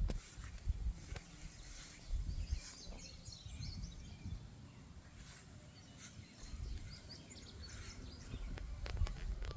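Outdoor ambience: uneven low rumbling on the microphone, with a few faint, short bird chirps.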